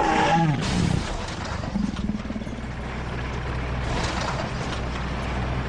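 Motor vehicle noise with a steady low hum, opening with a short falling tone.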